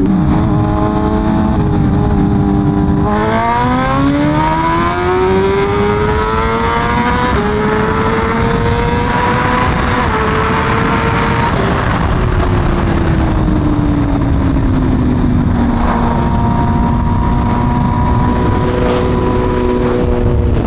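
BMW M1000RR's inline-four engine in a roll-on pull. It cruises steadily, then the throttle opens about three seconds in and the revs climb hard, with an upshift around seven seconds. It keeps pulling until about twelve seconds, when the throttle closes and the revs fall away to a steady cruise.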